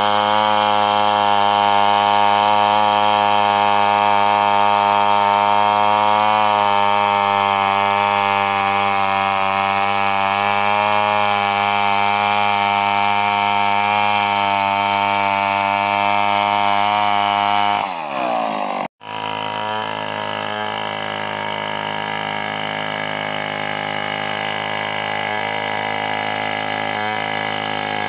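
Two-stroke chainsaw running at full throttle as it rips lengthwise through a coconut log. About 18 seconds in, the engine speed falls and the sound breaks off sharply for an instant. It then runs steadily again, quieter and at a lower pitch.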